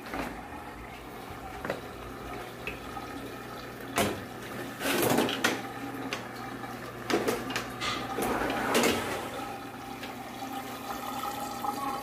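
Aquarium water running and splashing as the overflow drains down into the sump, over a steady low hum, with several knocks and rustles of handling a few seconds apart.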